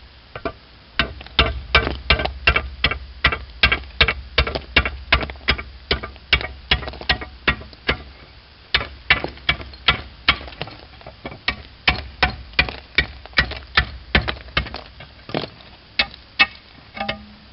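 A slater's hammer chopping the edge of a slate shingle to trim it to a marked line. It makes a steady run of sharp, ringing strikes, about three a second, with brief pauses between runs.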